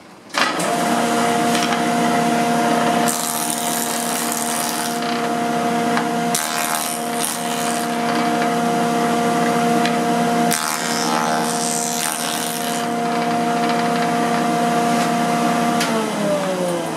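A 6-inch jointer starts up and runs with a steady motor hum while its newly bladed cutterhead planes the edge of a board in several passes, each cut adding a harsh, noisy rasp. Near the end it is switched off and winds down in falling pitch.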